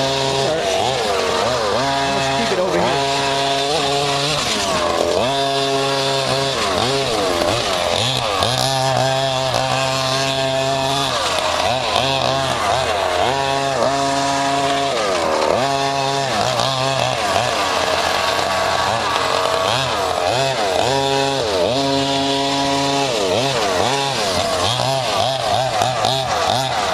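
Two-stroke engines of several large-scale gas RC cars racing, revving up and dropping back again and again, the pitches of two or more cars overlapping at times.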